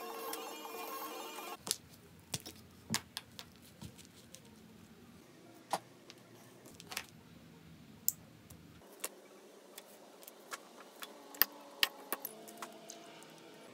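A short stretch of chime-like music, then a series of sharp clicks and taps as a swing-top glass jar's metal clasp and lid are handled and opened and small tools are set down on a cutting mat. The loudest clicks come near the end, as the lid is swung open.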